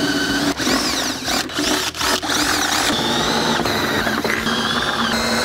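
DeWalt cordless drill running a long twist bit through the Jeep's sheet-metal body, enlarging holes to 25/64" for riv nuts. The motor whine rises and dips in speed and stops briefly several times as the trigger is let off and squeezed again.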